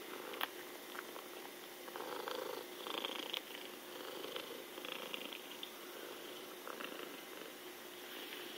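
Domestic cat purring steadily, with a few small clicks from licking catnip off the carpet.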